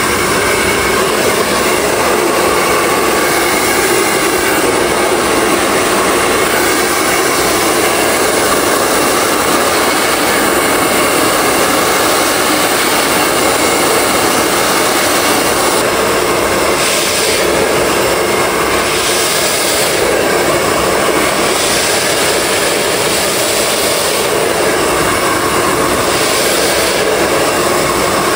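Handheld hair dryer blowing steadily at close range while hair is blow-dried. In the second half its rush of air changes in tone now and then as it moves.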